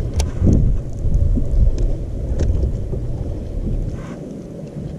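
Wind buffeting the microphone, a loud, uneven low rumble, with a few light clicks and knocks over it.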